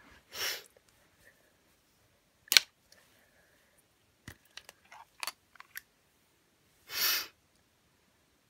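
Handling noise from small objects being moved about: one loud sharp click about two and a half seconds in, a cluster of lighter clicks and taps a little later, and two short breathy hisses, one near the start and one about seven seconds in.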